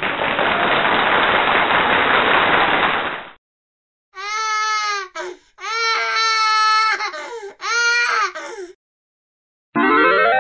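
Slideshow sound effects: about three seconds of a steady hissing noise, then after a short gap a high, wavering crying wail broken into several phrases, and near the end a brief sweeping whoosh as the slide's picture moves out.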